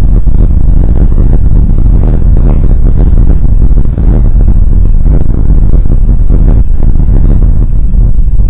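Loud, distorted rumbling buffeting on the nest camera's microphone, heaviest in the low end and fluttering unevenly, with a brief drop about four seconds in.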